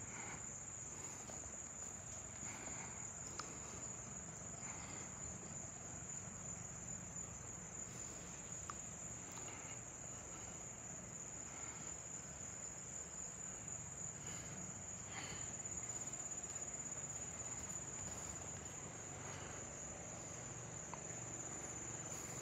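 Insects trilling steadily at a high pitch, with a faint low rumble beneath.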